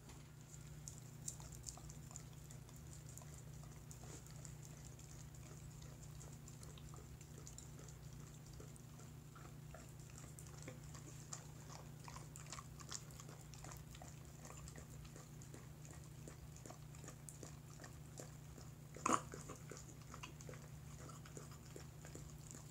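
A dog licking pudding out of a glass bowl: faint wet lapping with many small clicks, over a steady low hum. One louder knock comes near the end.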